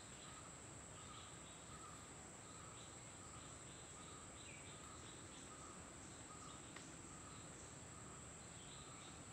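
Faint forest ambience: a steady high-pitched insect trill, with soft short calls repeating every half second or so.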